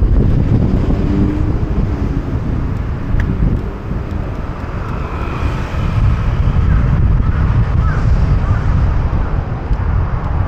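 City street traffic with heavy wind rumble on the microphone from riding, a steady low roar throughout.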